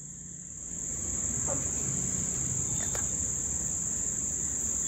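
Crickets chirping in a continuous, steady high-pitched trill.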